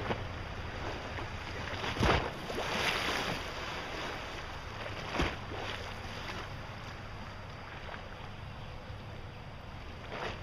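Wind rumbling on the microphone beside moving river water, with three sudden thumps, about two, five and ten seconds in; the one near two seconds is the loudest.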